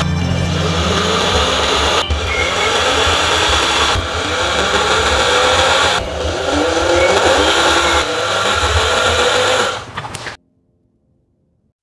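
Electric drill running as a twist bit bores holes through thick laminated cardboard, in several short stretches that start abruptly about every two seconds, each with a whine that rises in pitch. The drilling cuts off about ten seconds in, followed by near silence.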